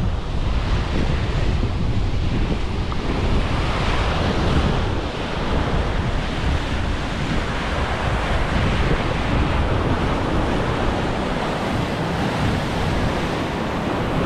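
Sea surf breaking and washing over shoreline rocks in a steady rush, with wind buffeting the microphone in a low rumble.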